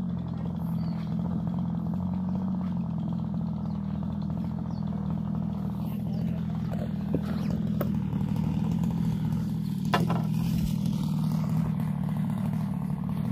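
Two-stroke grass trimmer engine driving a long-tail boat propeller, running steadily at part throttle, with a few light knocks about seven and ten seconds in.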